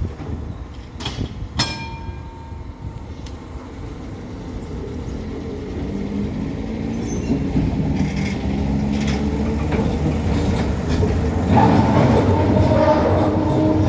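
Stuttgart tram approaching on the rails and growing steadily louder. There are two sharp ringing metallic clanks about a second in, and the wheels squeal in a high pitch near the end.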